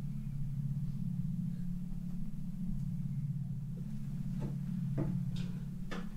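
A steady low hum or drone, with a few soft knocks and clicks about two-thirds of the way in and near the end.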